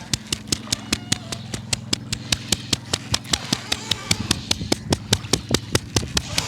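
A rapid, even rhythm of sharp hand slaps, about seven a second, from a barber's percussive head massage, over the steady hum of a boat's motor.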